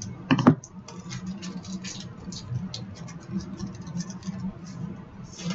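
Hockey trading cards and their pack being handled: a string of quick crinkles, scratches and ticks as cards are slid and flipped, with a brief louder sound about half a second in.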